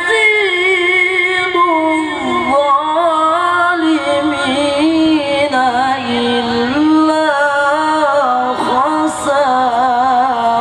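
A young male qari's high voice reciting the Qur'an in a melodic tilawah style into a handheld microphone. He draws out long, ornamented notes that slide up and down in pitch, with no break.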